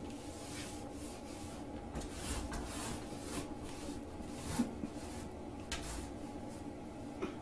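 Woven rag rug dragged across a tile floor in jerks by a cat's paw reaching under a door: a series of short scraping swishes, the loudest a little past halfway.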